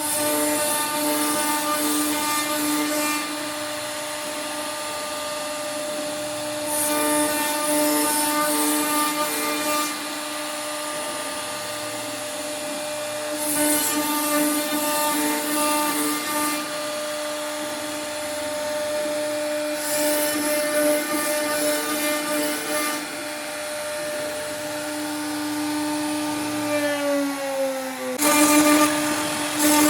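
CNC router spindle running with a steady whine while it carves wood, with a rasping cutting noise lasting about three seconds that comes back every six to seven seconds as the bit works through the wood. Near the end the whine drops in pitch, then cuts back in at full speed.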